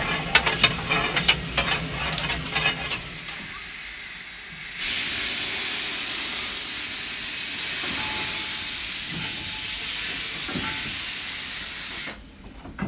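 A fire rake scraping and clinking on the firebars inside a small 0-4-0 steam locomotive's firebox for about three seconds, clearing the fire of clinker. From about five seconds in, a steady loud hiss of steam escaping from the locomotive, which cuts off suddenly near the end.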